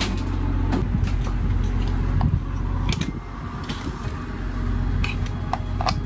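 Scattered light metallic clinks and rattles as a thin metal interior wall panel is handled and lifted out, over a steady low hum.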